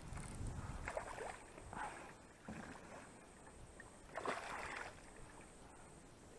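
Water splashing as a hooked pike thrashes at the surface beside the boat, in a few short splashes with the loudest about four seconds in.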